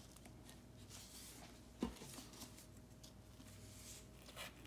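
Near silence: faint room tone with a thin steady hum, broken by a single soft knock a little under two seconds in.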